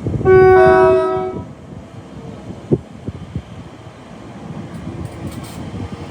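Train horn sounding one short two-tone blast of about a second: a lower note, with a higher note joining just after it. Rail noise from the train continues afterwards, with a sharp knock a couple of seconds later.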